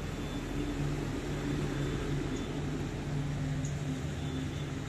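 Steady mechanical hum of a running machine, with a few low pitched tones that waver slightly.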